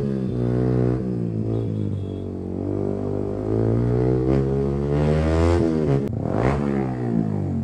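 Yamaha R15M's 155 cc single-cylinder engine through a loud aftermarket full exhaust, accelerating through the gears; the pitch dips early on, climbs about five seconds in, then drops sharply at an upshift just after six seconds.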